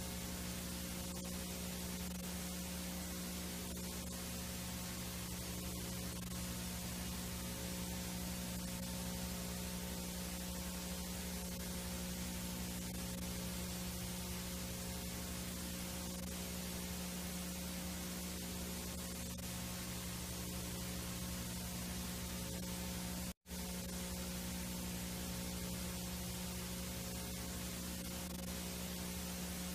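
Steady VHS tape hiss and static with a low electrical hum underneath, cutting out for a split second once, late on.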